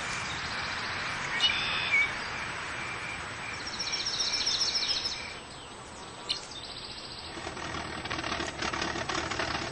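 Small birds chirping, with a rapid trill of repeated high notes about halfway through, over a steady hiss of outdoor ambience.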